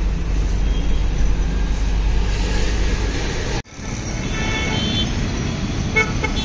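Steady low rumble of vehicle and road noise. It cuts off abruptly about three and a half seconds in, then resumes with short high-pitched tones over it.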